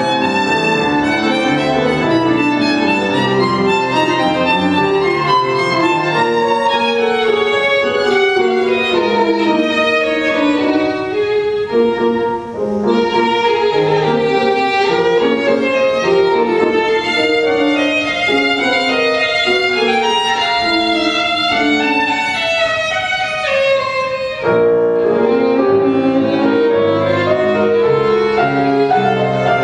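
Solo violin playing with piano accompaniment, a continuous run of many changing notes, with brief lulls about twelve and twenty-four seconds in.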